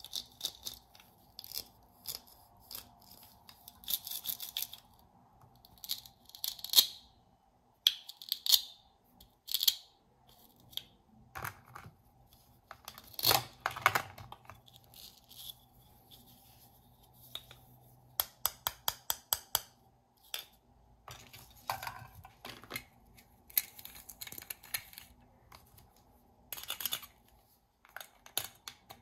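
Toy plastic fruit pieces held together with Velcro being pulled apart and cut with a plastic toy knife: short Velcro rips mixed with plastic clicks and taps on a plastic cutting board, coming in scattered bursts, with a quick run of clicks about two-thirds through.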